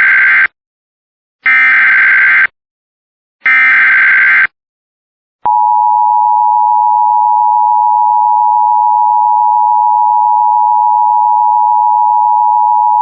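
Emergency Alert System tones announcing a flood warning: three one-second bursts of SAME header data, a second apart, then a click and the steady two-tone EAS attention signal (853 and 960 Hz) for about eight seconds.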